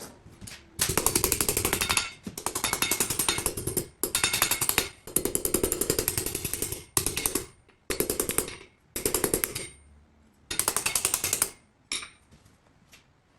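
Blacksmith's power hammer striking in a series of short bursts of rapid, evenly spaced blows, each burst stopping sharply.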